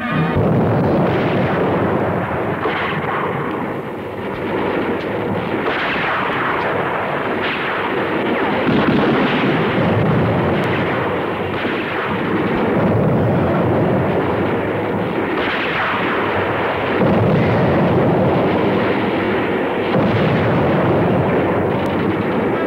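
Battle sound effects from an old war film: a dense, unbroken barrage of gunfire and artillery explosions, with little high treble.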